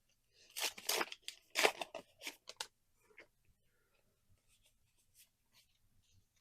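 Foil booster pack wrapper torn open, a quick run of sharp crackling rips over about two seconds, followed by faint light ticks of cards being handled.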